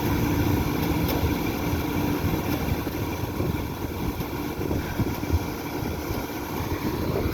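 Outdoor air-conditioner condensing unit running: the steady rush of its condenser fan with a compressor hum, a low steady tone that fades out about two seconds in.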